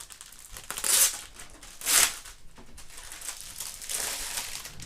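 Packaging crinkling as the keyboard is unwrapped. There are two sharp, loud rustles about a second apart, then a longer, softer rustle.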